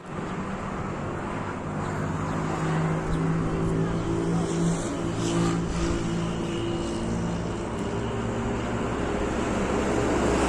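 Steady hum of a motor vehicle running, with a few faint higher tones wavering over it.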